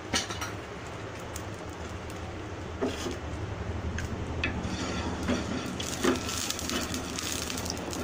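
Coconut oil sizzling on a hot iron dosa tawa over a steady low rumble, getting a little louder in the second half. A few sharp clicks and taps stand out from it.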